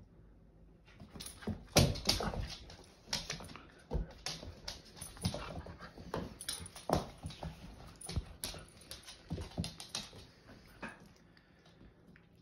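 Two Siberian huskies, a puppy and an adult, play-fighting: a busy run of short dog vocalisations mixed with sharp scuffling knocks, starting about a second in, loudest soon after, and dying down near the end.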